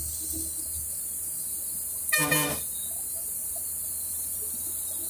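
A single vehicle horn blast of about half a second, a couple of seconds in, over the steady low drone and road noise of a moving bus.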